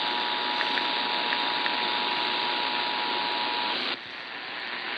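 Emergency Alert System attention signal, the two-tone 853 and 960 Hz alert tone, sounding steadily over a hissy broadcast reception during a required monthly test. It cuts off a little under four seconds in, leaving only the steady hiss.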